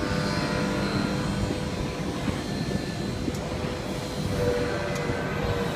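Robotic welding cell running on the factory floor: a steady, even machine noise with a few faint steady tones.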